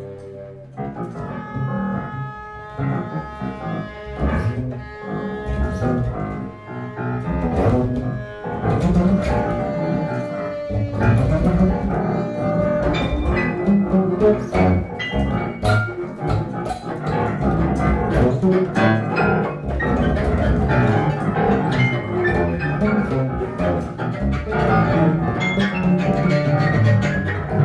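Free-improvised instrumental music from a trio of cello, bass guitar and keyboard, with many short plucked and struck notes; it grows louder about ten seconds in.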